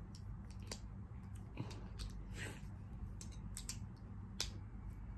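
Plastic Lego bricks being handled and pressed together: a scatter of small clicks and taps, the sharpest one about four and a half seconds in.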